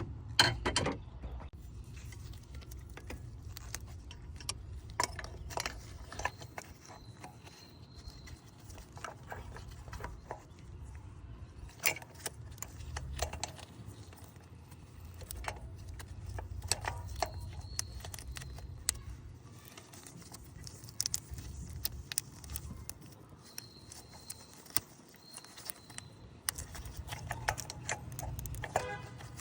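Scattered metallic clicks, clinks and knocks of hand tools and parts being handled while working on a car engine, over a steady low rumble.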